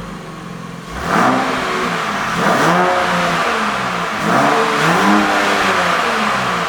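Genesis GV70 3.5T's twin-turbo V6 through a custom valved exhaust, revved up and let fall three times after a quieter first second.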